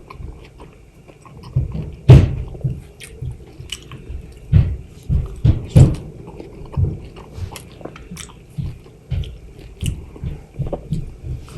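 Chewing and biting of fresh, juicy mango: irregular wet mouth clicks and bites, the loudest about two seconds in.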